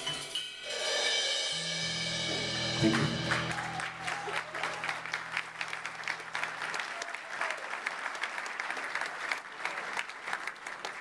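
A live band's song ends on a held final chord from keyboard and electric guitar. An audience breaks into applause about three seconds in and keeps clapping after the chord dies away, about seven seconds in.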